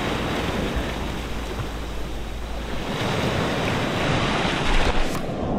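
Sea waves breaking and washing in the surf, a steady rushing that swells louder near the end, with wind buffeting the microphone.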